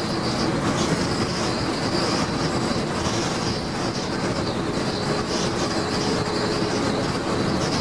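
A Daimler Fleetline double-decker bus cruising at steady speed, heard from the upper deck: its rear engine and drivetrain running with road noise and the rattle of the body. A faint steady hum comes in about five seconds in.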